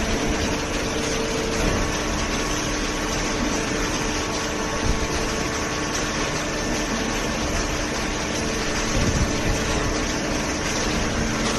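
Horizontal hydraulic cardboard baler running: a steady mechanical hum and hiss of the hydraulic power unit, with held whining tones that drop out and return.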